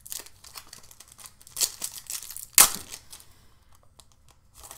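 Crinkly plastic-foil wrapper of a Panini Prizm basketball card pack being torn open and crumpled by hand: a run of short crackles, loudest about two and a half seconds in.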